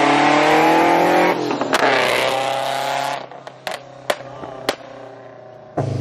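Vortech-supercharged Scion FR-S flat-four with a straight-piped exhaust accelerating hard. Its note rises, dips at a gear change about a second in and rises again. It lets off about three seconds in, with a few sharp cracks, then builds again near the end.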